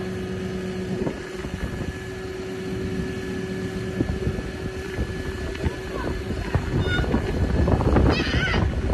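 A turntable ladder fire engine's diesel running steadily, with a steady whine from the ladder's hydraulic drive that stops about four to five seconds in. Wind buffets the microphone, and near the end a person's voice calls out briefly.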